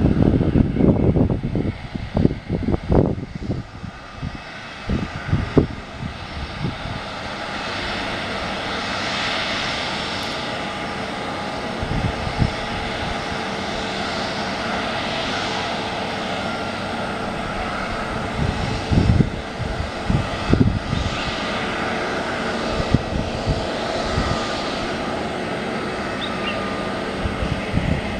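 Jet engines of an Airbus A320neo (CFM LEAP-1A turbofans) running as a steady, even roar while the airliner rolls out along the runway after landing. Low buffeting rumbles in the first few seconds, with a few more gusts later.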